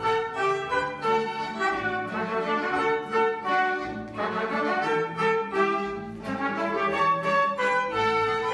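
Small Austrian folk ensemble playing a waltz tune for dancing: violin leading, with button accordion, guitar and trumpet.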